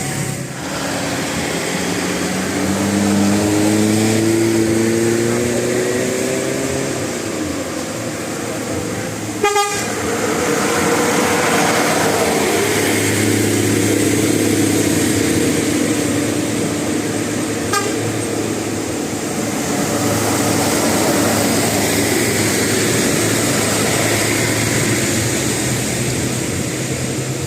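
Bus engine running, its pitch rising steadily over a few seconds as it pulls away, then running evenly; a sharp click about ten seconds in.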